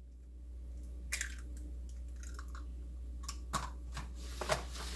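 A hen's egg's shell being pulled apart by hand over a bowl of raw ground beef and the egg dropping in, with a few light clicks and crackles of eggshell being handled.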